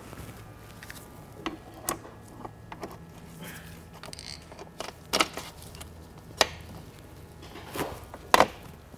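Scattered sharp metallic clicks and knocks as a dirt bike's suspension linkage parts and bolts are handled and fitted, with the loudest knock near the end.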